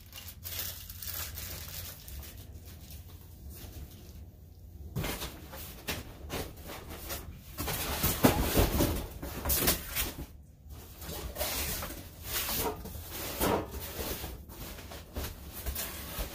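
Handling noise from parts being worked with by hand: a run of knocks, clatters and rustles, busiest about halfway through.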